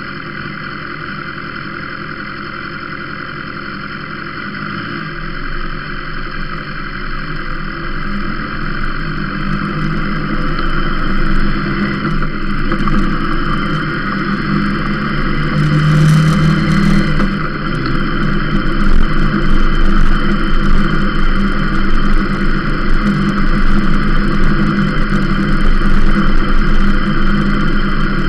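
Sport motorcycle engine idling, then pulling away and accelerating, getting steadily louder from about four seconds in. Wind noise on the microphone builds as the speed rises.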